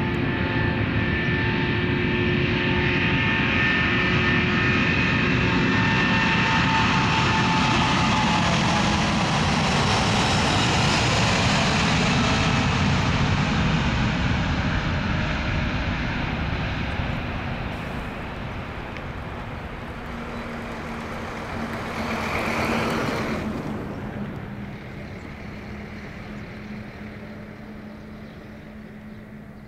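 Boeing 787-8 Dreamliner's twin jet engines at takeoff thrust on the takeoff roll and climb-out. A steady engine whine rises into a loud rush as the plane passes, then fades as it climbs away, with a brief swell about two-thirds through.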